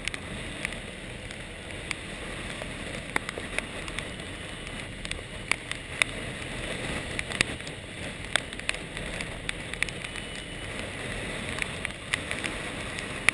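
Squall rain and spray striking the camera housing in irregular sharp ticks over a steady rush of wind and sea.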